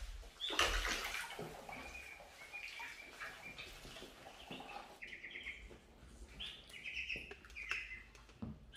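A flock of ducklings peeping, with many short high calls overlapping, while they paddle and splash in shallow water in an inflatable paddling pool. The splashing is loudest about half a second to a second and a half in.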